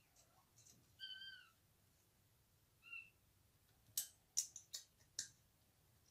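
Faint assembly sounds on an aluminium-extrusion 3D printer frame being bolted together: two short high-pitched squeaks in the first three seconds, the first arching up and down, then about five sharp metallic clicks in quick succession from about four seconds in, from the hex key and bolts against the frame.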